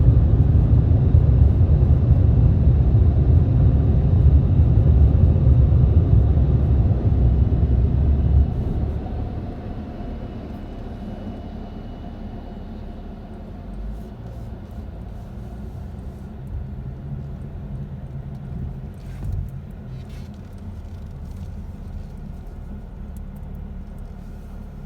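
A car running with a loud low rumble, which drops to a much quieter steady rumble about eight seconds in.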